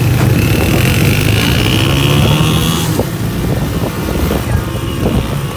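Auto-rickshaw engine running steadily as the rickshaw drives along, heard from the passenger seat with road noise. A faint high, thin whine sounds through the first half.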